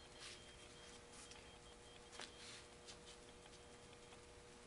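Near silence: room tone with a faint steady hum and a few faint, soft ticks.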